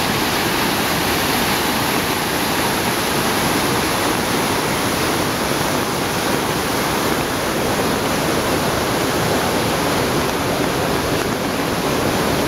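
Floodwater rushing through a storm-swollen creek, a steady churning rush of fast, turbulent water.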